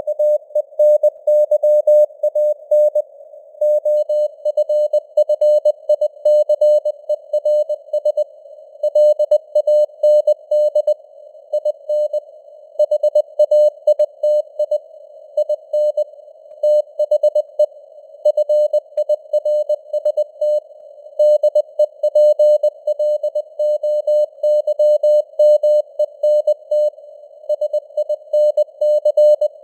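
Morse code sent at 20 words per minute: a single mid-pitched beep keyed on and off in dots and dashes, with short pauses between letters and words. Between the elements a narrow band of simulated radio receiver hiss stays audible around the tone.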